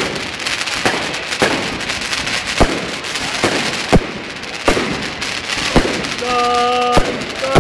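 Fireworks going off: sharp bangs about once a second over a steady crackling hiss.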